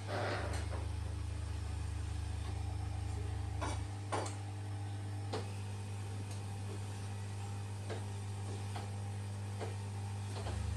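Electric massage chair's motors humming steadily. The low drone shifts a few times as the massage mechanism changes its action, with a few light clicks.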